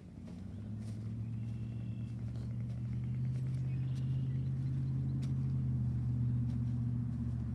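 A motor vehicle's engine droning with a steady low hum, growing gradually louder over several seconds as it draws nearer.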